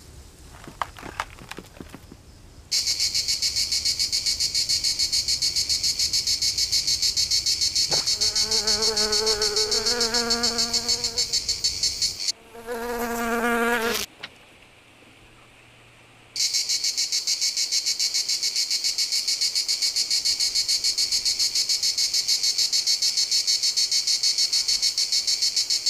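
Cricket chirping: a loud, high, rapidly pulsing trill. A wavering buzzing tone joins about eight seconds in. The chirping breaks off after a louder burst around twelve seconds in and starts again about sixteen seconds in.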